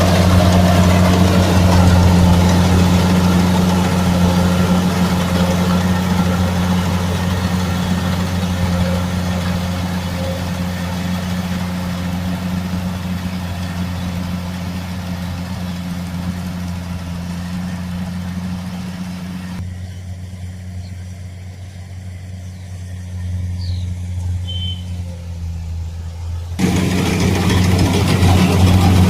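Combine harvester's engine and threshing machinery running steadily with a deep drone. It slowly grows quieter, and about two-thirds of the way through the higher hiss drops away for several seconds. Near the end it returns loud.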